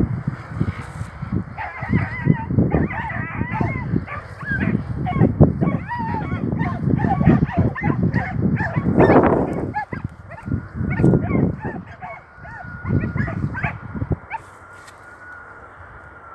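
Animal calls: many short, repeated pitched calls over a low rumble and thumps, with a steady high tone through the second half.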